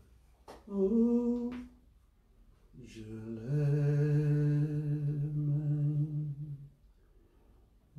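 A man's voice singing unaccompanied in slow, chant-like phrases: a short note about a second in, then one long held note that steps up slightly in pitch and stops shortly before the end.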